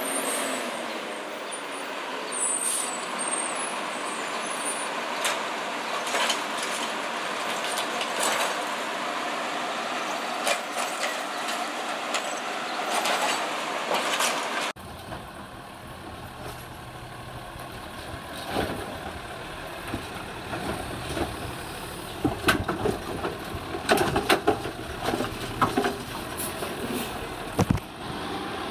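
Automated side-loader garbage trucks. First, one truck's diesel engine runs as it drives up, with brief hisses from its air brakes. After a cut, a Heil side-loader's mechanical arm works a recycling cart, with a burst of loud clunks and bangs near the end as the cart is lifted and dumped.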